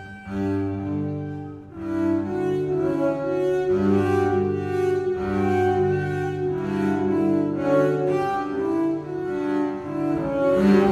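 Two double basses bowed together in a duet, holding overlapping notes that change pitch every second or so. The sound drops briefly about one and a half seconds in, then both basses come back in.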